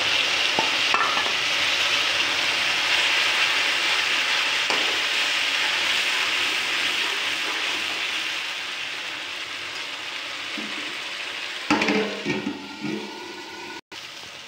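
Freshly ground onion-garlic-ginger masala paste sizzling hard in hot oil in a kadhai as it is stirred with a metal spatula. The sizzle dies down gradually over the second half as the paste begins to fry, with a few knocks of the spatula against the pan near the end.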